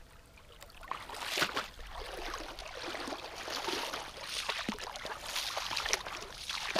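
Water splashing and sloshing in irregular surges as a hooked golden dorado thrashes in the shallows at the sandbar's edge, starting about a second in.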